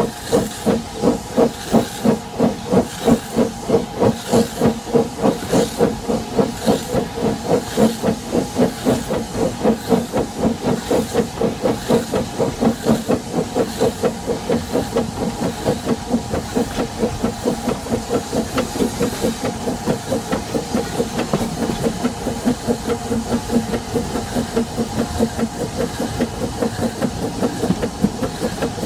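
Narrow-gauge Double Fairlie steam locomotive pulling away from a standstill, with a hiss of escaping steam throughout. Its exhaust beats are strong and regular, about two a second at first, then grow quicker and lighter as the train gathers speed.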